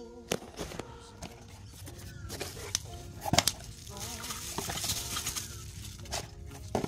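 A series of light clicks and knocks from handling small metal hardware, a stainless steel handrail bracket and its parts; the loudest knock comes about halfway through.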